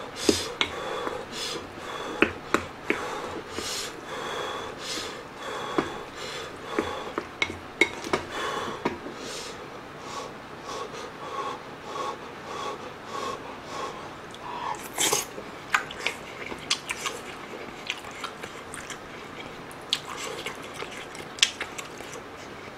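Close-miked eating of army base stew with rice: chewing and mouth noises with many irregular small clicks of spoon and chopsticks against the bowl and pot.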